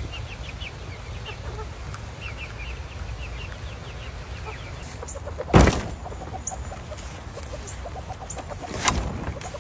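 Chickens clucking: a string of short high calls in the first few seconds, then quick runs of low clucks. Two loud thumps, one about five and a half seconds in and one near the end, are the loudest sounds.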